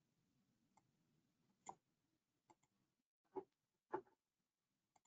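Near silence broken by a few faint computer-mouse clicks, spread over the second half.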